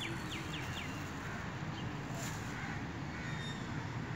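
A bird calling a quick run of short, sharp notes in the first half-second, over steady outdoor background noise, with a brief crinkle of a plastic bag about two seconds in.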